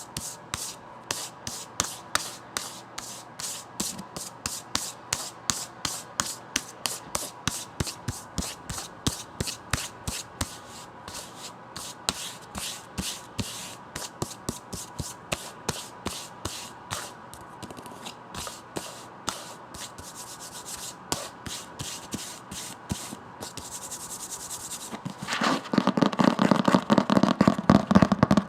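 Hands rubbing and scratching over a book in quick, even strokes, about three a second. About twenty-five seconds in, a louder, denser crackling starts.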